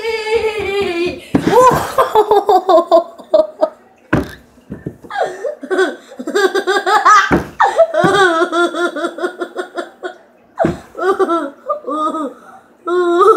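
A person laughing hard in high-pitched fits, several long bursts of laughter broken by short pauses.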